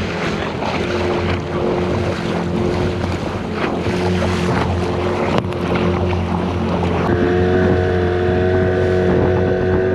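Small outboard motor running steadily at speed while the boat's hull slaps through choppy water, with splashing spray and wind on the microphone. About seven seconds in, the engine's steady hum comes through louder and clearer.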